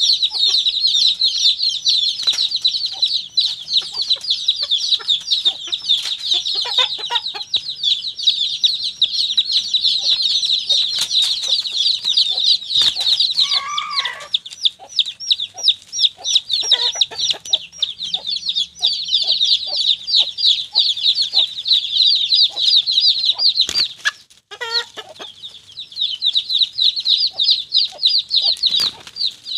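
Chicks peeping in a rapid, continuous high chirping, with a hen's lower clucks now and then and a short louder squawk about halfway through. A couple of sharp knocks near the end.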